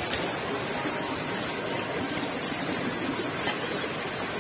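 Steady rushing of a shallow rocky stream, with a few faint clicks near the start and about two seconds in.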